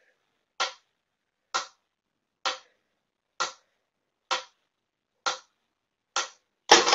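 Mechanical metronome ticking steadily, about one tick a second. A louder burst of mixed noise comes in just at the end.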